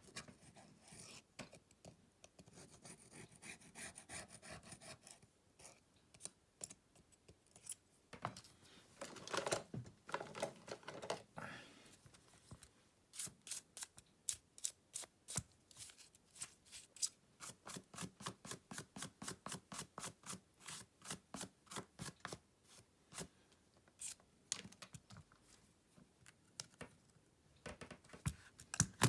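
Small tools and plastic parts handled while disassembling a Samsung Galaxy M31s smartphone: scraping and rubbing, then a long run of light, quick clicks, about three or four a second, with scattered clicks near the end.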